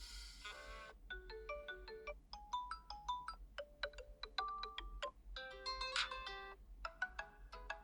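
POCO X5 default ringtone playing: a melody of short, bright bell-like notes, with a dense flurry of notes about six seconds in.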